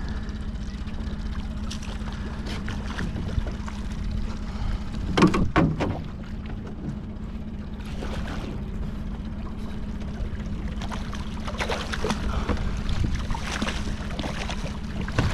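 Small outboard motor running steadily at trolling speed. Over it, a hooked Chinook salmon splashes at the surface beside the boat: a loud burst of splashing about five seconds in, and more splashes a few seconds before the end.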